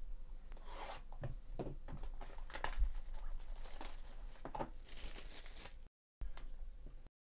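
Plastic shrink wrap being torn and peeled off a cardboard trading-card box, crinkling and crackling in irregular bursts for about six seconds, then a short last crinkle.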